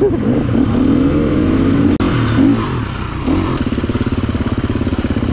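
Gas Gas 350 four-stroke dirt bike engine revving up and down under the throttle, then, after a sudden break about two seconds in, running at low, steady revs with an even pulse.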